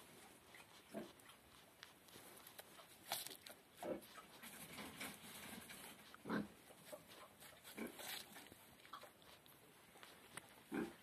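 A nutria (coypu) gnawing and chewing an apple: faint, irregular crunching bites, spaced a second or more apart.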